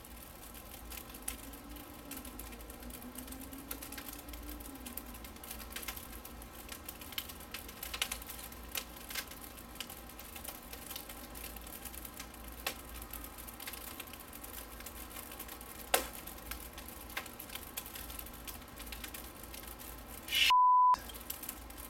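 Quiet background with a few faint scattered clicks, then near the end a loud steady single-tone censor bleep lasting under a second, laid over a gap where the sound is cut out.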